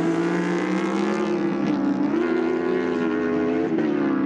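Endurance-racing superbike engines running hard at high revs as a group of bikes passes. The engine note steps up in pitch about halfway through, then drops with a gear change near the end.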